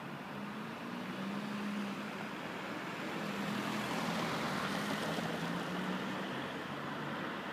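A car drives past close by. Its engine hum and tyre noise on the wet road rise to a peak about four to five seconds in, then fade as it moves away.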